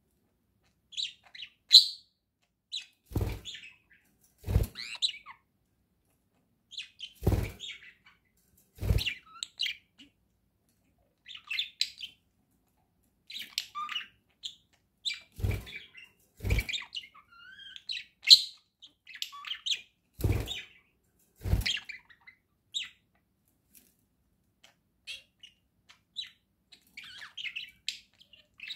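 Budgerigars chirping and warbling in short, scattered bursts, some notes gliding in pitch. About eight sharp low thumps are mixed in.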